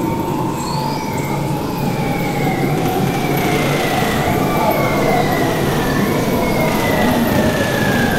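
Hydrophone recording of marine mammal calls played over loudspeakers: long, slowly falling tones that waver and overlap, over a dense underwater rumble and hiss.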